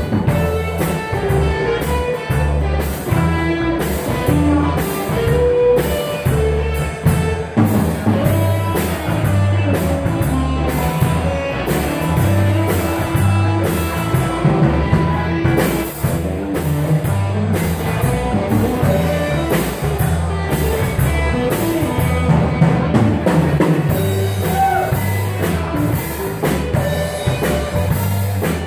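Live blues band playing without vocals: electric guitar lines over a repeating acoustic bass guitar figure and drums keeping a steady beat.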